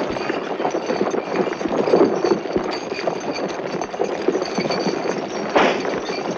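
Horse hooves and the feet of a moving crowd on a dirt square, a dense run of many small irregular impacts from a 1969 film soundtrack. A sharper burst of noise comes near the end.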